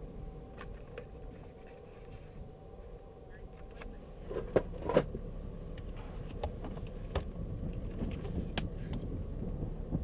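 Low steady rumble with scattered clicks and knocks, two of them louder about halfway through.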